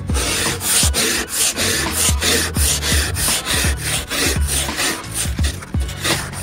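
Scraper rasping frost off a car's frozen windscreen in quick repeated strokes, about three a second, over a low steady hum.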